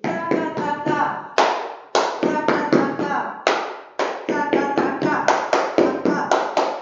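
Flamenco-style zapateado: boots stamping on a tiled floor mixed with hand claps, in a quick uneven rhythm of about three to four strikes a second, with a few louder stamps among them.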